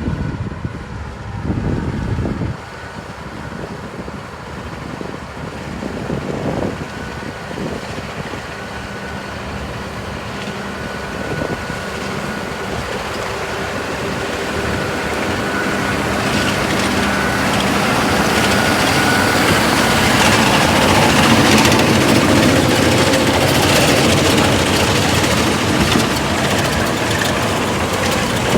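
Tractor engine running with a potato haulm topper cutting the vines. The machine's rushing noise builds over the first twenty seconds or so, then holds steady.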